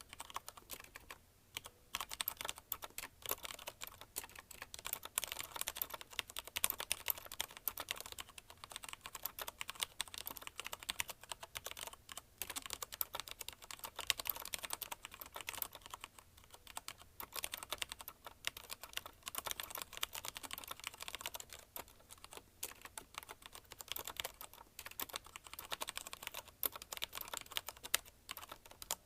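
Fast continuous typing on a CM Storm Quick Fire TK mechanical keyboard with linear Cherry MX Red switches: a rapid stream of key clacks with brief pauses between words.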